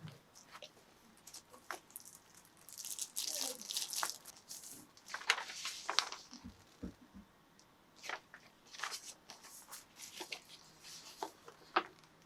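Packaging being handled and opened: rustling and tearing, with scattered light clicks and taps, the longest rustles about three and five seconds in.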